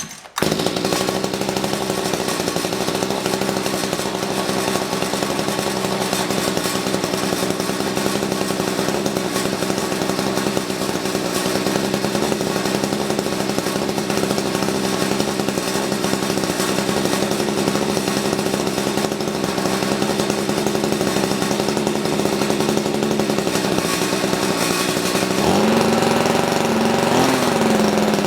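Mantis tiller's small engine catching about half a second in and running steadily on its new carburetor; near the end its speed rises and wavers. The owner says it is running a little funky, needing the mixture tuned between rich and lean.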